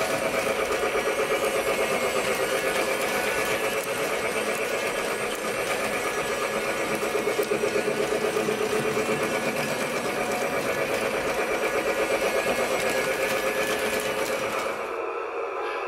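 Lionel battery-powered toy train running around its plastic track: the small motor and gears whir steadily with a fast, even pulsing. The running noise drops away near the end.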